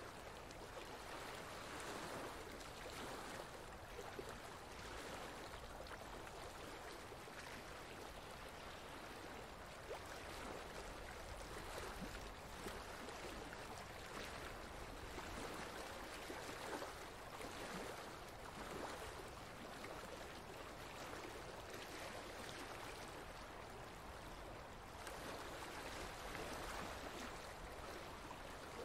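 Flowing stream water, a steady wash that swells and eases slowly.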